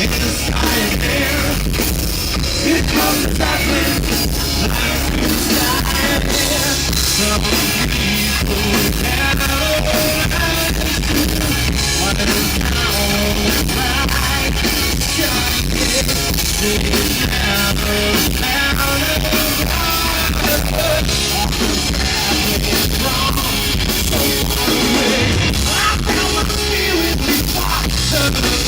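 Rock band playing loudly: drum kit and electric guitars, with a singing voice.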